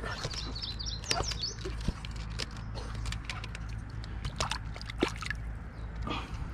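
A small sunfish splashing at the water surface as it is hauled in on hand line and lifted out, with water sloshing and dripping in short bursts. Birds chirp in the first second or two.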